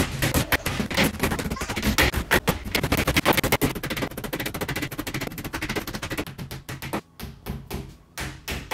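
A hammer driving small nails through a thin fibreboard back panel into the wardrobe's edges in quick repeated blows. The blows thin out to a few spaced strikes over the last second or two.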